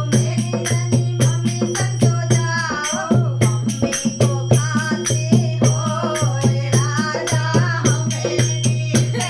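A woman singing a Hindi folk song in a wavering, ornamented voice, over rattle-like jingling percussion that keeps a quick, even beat and a low, steady bass tone that pulses in regular phrases.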